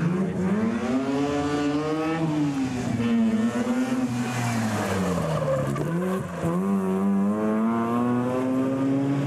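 Mazda RX3 rotary engine revving hard on a sprint run. Its pitch climbs and falls several times, dropping sharply a little past halfway, then climbs steadily again to the end. The tyres squeal briefly around the middle as the car corners.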